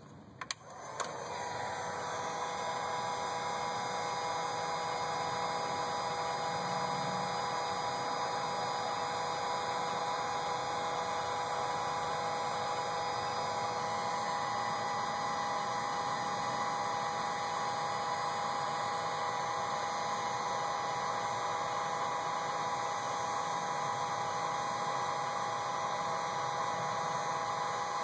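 Electric heat gun switched on about a second in, then running steadily: a fan whir with a constant whine, heating heat-shrink tubing over a soldered wire splice.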